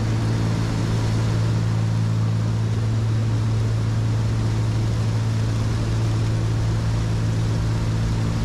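Steady drone of a Cessna 310Q's two six-cylinder piston engines and the airflow, heard inside the cabin in flight, even and unchanging.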